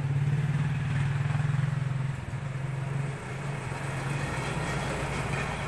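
A motor vehicle's engine running steadily, a low pulsing drone that dips briefly about two seconds in and again about three seconds in.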